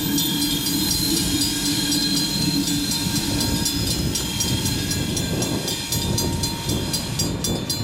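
Train rolling away past a road grade crossing, its wheels clicking over the rail joints, while the crossing's warning bell rings in quick even strikes as the gates lift after the train has cleared.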